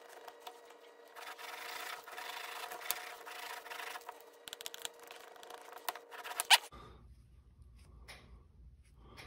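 Steel broadhead edge, held in a KME sharpener clamp, drawn back and forth over a strop to polish it: a steady rubbing and scraping. The rubbing stops with a sharp click about six and a half seconds in.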